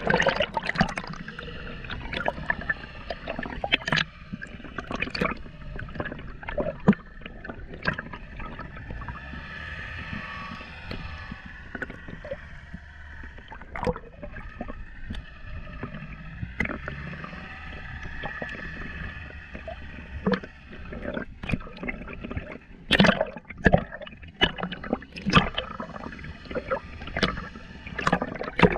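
Water sloshing and gurgling heard underwater through a waterproof camera housing just below the surface, muffled, with irregular sharp clicks and knocks. The clicks come thicker and louder in the last third.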